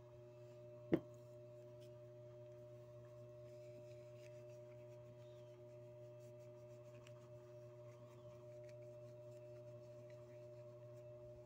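Very quiet room with a steady low hum and two faint steady tones. A single sharp tap about a second in comes from the brass badge and buckle being handled for polishing.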